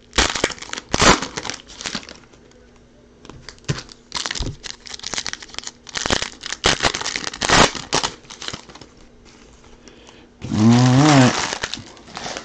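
Foil wrapper of a 2020 Select baseball card pack crinkling and tearing as it is pulled open by hand, in irregular spells of crackling. A man's voice sounds briefly near the end.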